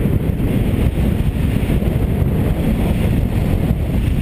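Wind buffeting the microphone of a camera on a moving motorcycle, over the steady running of a Suzuki DR800's big single-cylinder engine. The loud rumble holds even, with no change in speed.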